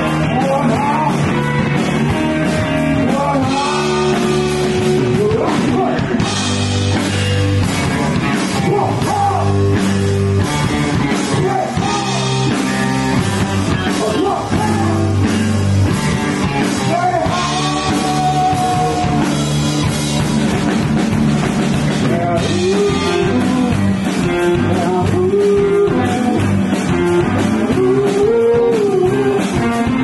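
Live rock band playing: amplified electric and acoustic guitars over a drum kit, with a singing voice.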